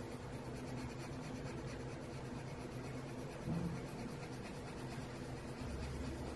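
Derwent burnishing pencil rubbed over coloured pencil on paper in small circular strokes: a soft, steady scratching over a low steady hum, with one brief bump about halfway through.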